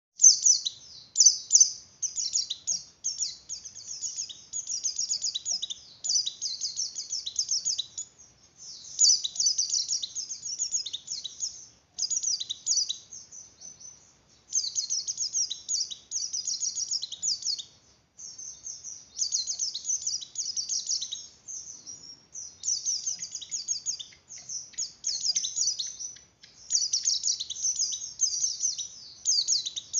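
White-eye (pleci) in breeding condition singing a fast, high-pitched twittering song in phrases of one to three seconds, broken by short pauses.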